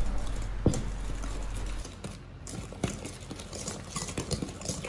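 Wire whisk beating a thick creamed butter, sugar and egg-yolk mixture in a stainless steel bowl: quick irregular clicks and scrapes of the wires against the metal.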